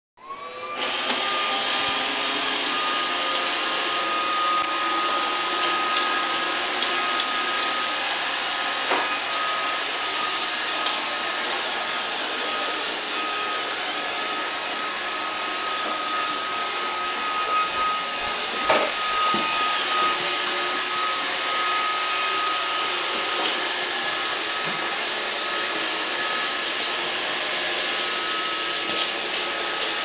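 Roomba robot vacuum starting up with a rising whine, then running steadily: a constant whirring hiss with a steady high whine over it, and a couple of brief knocks along the way.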